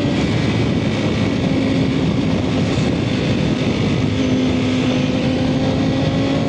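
Ducati Panigale V4R's 998 cc V4 engine holding a steady note at cruising speed in fourth gear, about 110 km/h. Heavy wind rush on the microphone is louder than the engine.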